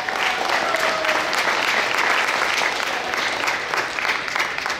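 Crowd applauding in a gym, with a few cheers in the first second, at the end of a wrestling bout.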